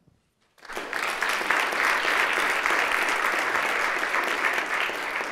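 Assembly members applauding. The clapping starts after a short silent pause just under a second in and holds steady.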